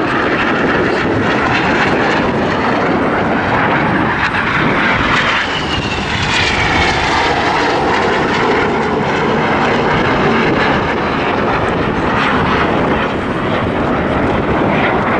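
Jet noise from BAE Hawk T1 jets, with Rolls-Royce Turbomeca Adour turbofan engines, flying a formation display pass. A loud, steady rushing sound, with a whine that falls in pitch about six seconds in as a jet passes.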